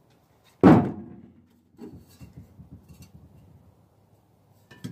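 A loud clunk about half a second in with a short ring-down, then lighter knocks and rattles of sheet metal as a perforated steel tube is handled and slid into an opened diesel muffler shell.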